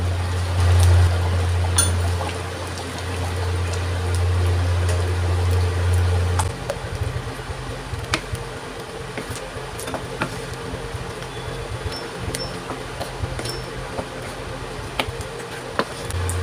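Thick tomato stew simmering in an aluminium pan while a wooden spatula stirs it, with scattered clicks and scrapes against the pan. A steady low hum runs underneath; it drops out about six seconds in and returns near the end.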